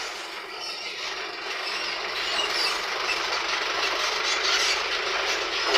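Coil-winding machine running steadily as wire is wound for a fan coil, a dense mechanical whir with a faint squeal that grows slightly louder over the few seconds.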